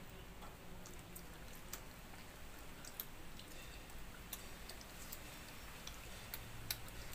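Close-up chewing of mango sada (sun-dried mango pulp): faint, irregular wet mouth clicks and smacks, roughly one every second or so, over a faint low steady hum.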